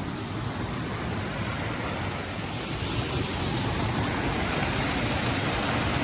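Rushing water of a small rocky cascade: a steady hiss that grows a little louder toward the end.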